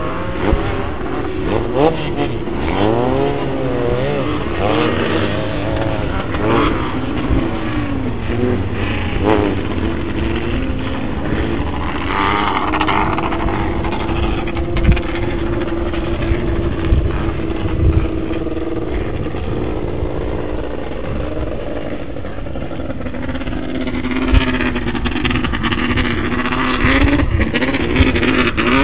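Several off-road race buggy engines running in a pack, revving up and down in the first seconds, then holding a steady drone through the middle, rising again near the end.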